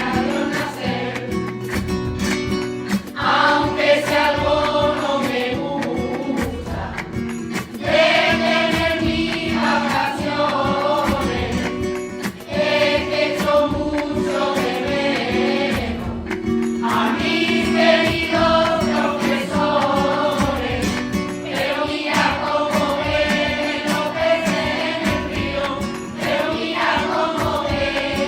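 A school choir singing a villancico (Spanish Christmas carol) in a medley, over instrumental backing with a steady beat.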